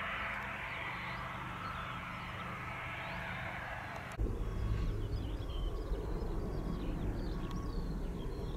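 Vehicle engine running steadily under a rushing hiss. About four seconds in the sound cuts abruptly to a louder low rumble, with birds chirping above it.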